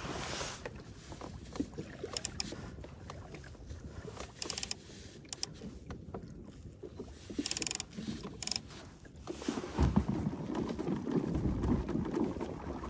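Water rushing and splashing along a pedal kayak's hull, with some wind on the microphone and scattered short clicks and rattles. About nine seconds in the rushing grows clearly louder as the kayak is pedaled hard forward to set the hook on a striking fish.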